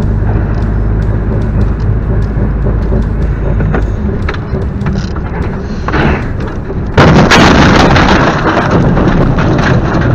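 A car's road and engine noise at speed, heard from inside the cabin, then about seven seconds in a sudden loud crash as the car slams into the back of a semi-trailer truck, followed by loud rough noise that carries on.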